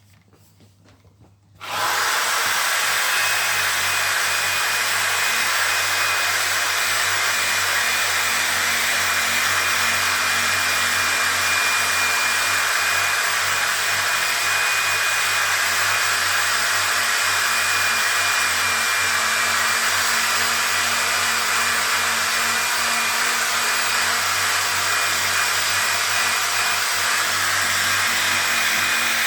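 Handheld electric sander fitted with 800-grit paper, switched on about two seconds in and then running steadily at one speed against a plastic headlight lens, with a faint high whine.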